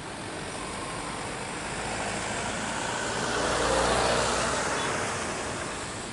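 Turbofan engines of a Batik Air Boeing 737 taxiing past: a steady jet whine and rush with a low hum, swelling to its loudest about four seconds in as the aircraft comes abeam, then easing off.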